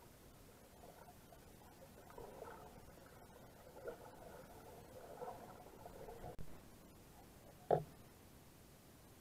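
Faint, muffled underwater noise from a submerged camera: a low, uneven murmur of water movement for a few seconds, then one short sharp knock near the end.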